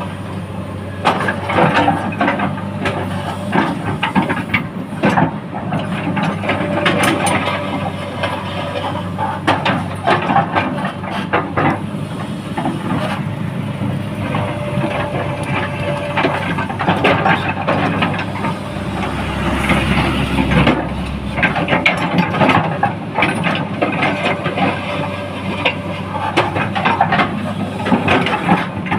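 An engine of heavy road-work machinery runs steadily, overlaid by frequent knocks, clanks and scraping. The low rumble swells briefly about two-thirds of the way through.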